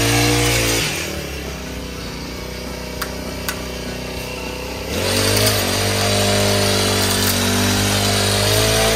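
A small motor running with a chainsaw-like, engine-type sound. About a second in it drops to a quieter hum with two light clicks, and about five seconds in it picks up again and runs steadily.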